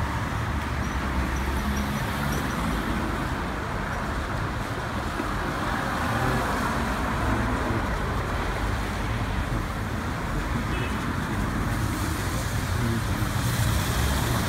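Steady city street traffic noise: a low rumble of cars and buses on the road with an even hiss over it.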